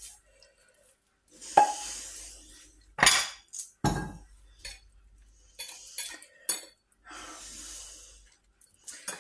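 Frying pan and china plate clattering as a potato tortilla is turned out of the pan onto the plate and the pan goes back onto the gas hob's metal grate. There are several sharp knocks and clinks, the heaviest between about a second and a half and four seconds in, with lighter clinks later.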